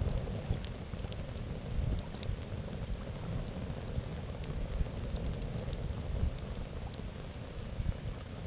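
Campfire burning with scattered small crackles and pops over a low rumble.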